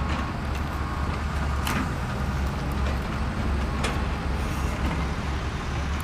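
Plastic bucket of a Bruder CAT toy excavator scraping and clicking in loose gravelly soil a few times as it digs, over a steady low rumble.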